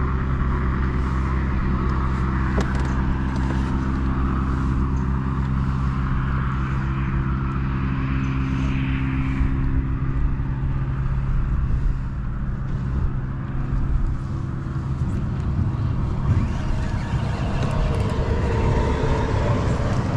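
Road traffic on the highway bridge: a steady low drone with tyre noise over it. The drone holds for about fifteen seconds, then turns rougher and more uneven.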